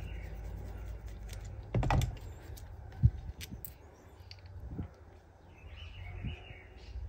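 Small metal clicks and taps as a screwdriver works on a chainsaw's diaphragm carburetor and its fuel-pump cover is taken off; a few sharp knocks, the sharpest about three seconds in. A low hum underneath fades out about halfway through.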